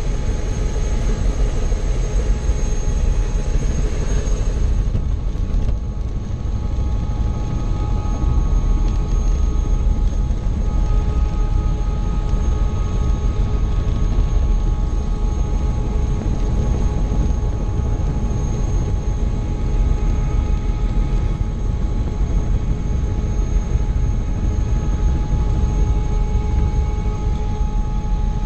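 Helicopter turbine engine and main rotor running at speed for takeoff, heard from inside the cabin: a steady deep rumble with a constant high whine over it.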